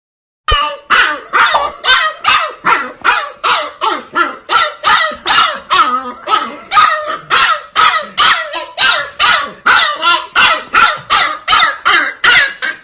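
A dog barking over and over in a steady run of about three barks a second, starting half a second in.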